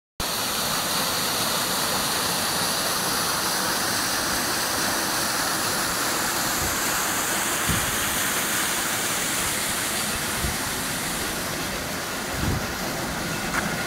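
Water gushing out of a stone arch under a watermill, a steady loud rush. A few soft low thumps come in the second half.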